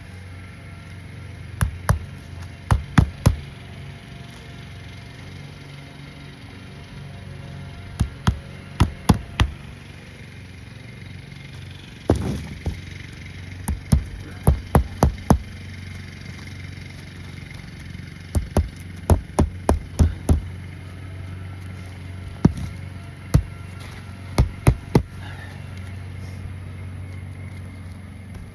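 Hammer driving roofing nails on a shingle roof, in short runs of two to six quick strikes with pauses of a few seconds between. A steady low hum runs underneath.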